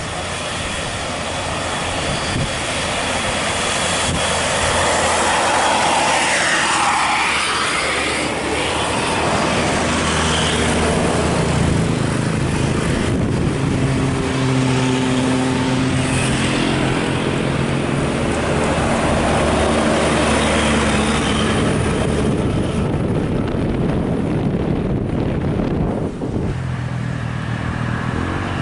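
Heavy vehicles, buses among them, driving past close by at speed: a continuous roar of engines and tyres that swells and fades as each one passes. About halfway through, a steady engine drone with several held tones runs for several seconds.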